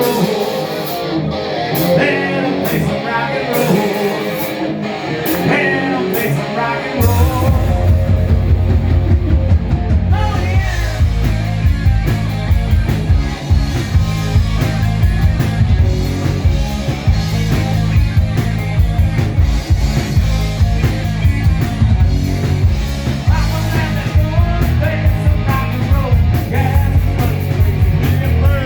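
Rock music with singing and guitar; a heavy bass and drum part comes in about seven seconds in.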